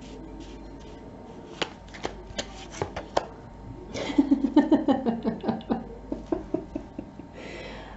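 A tarot deck being shuffled by hand: a series of sharp card snaps and slides, busier from about four seconds in.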